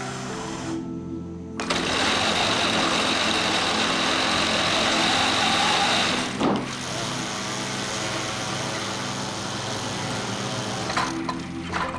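Vacuum cleaner under test: a steady hum, then a loud whirring rush from about a second and a half in. A knock comes about six and a half seconds in, the whirring continues more quietly, and there are a few clicks near the end.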